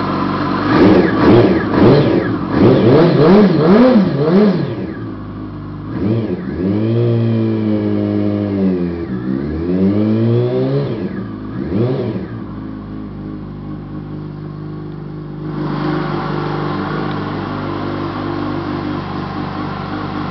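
2008 Yamaha R1's inline-four engine, fitted with racing baffles and a replaced Y-pipe, revved by hand: a quick run of about five throttle blips, then two longer revs, one more short blip, and back to a steady idle.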